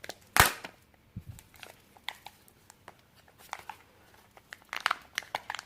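Plastic surprise-egg packaging being handled and opened: a sharp plastic click about half a second in, then scattered crinkling and small clicks, busier near the end.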